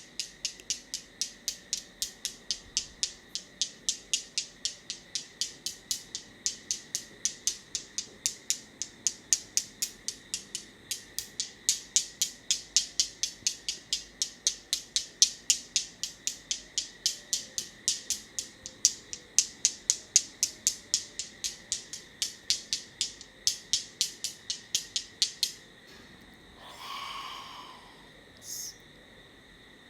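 Rapid, evenly paced crisp clicking, about three clicks a second, that stops suddenly a few seconds before the end. A short rustle and one last click follow.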